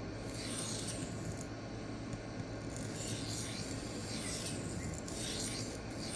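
The D2 steel blade of an Ozark Trail knife is stroked freehand across a 1x6-inch Xarilk diamond sharpening plate in repeated quick sweeps, scraping steadily. The strokes flip back the burr raised at about a 20-degree angle.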